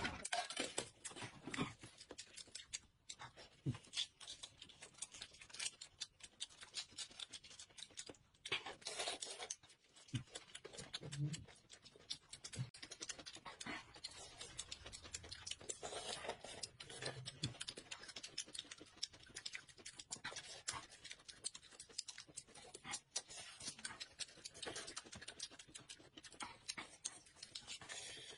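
Close-up eating sounds: a dense, irregular run of small clicks and crackles from chewing and handling food.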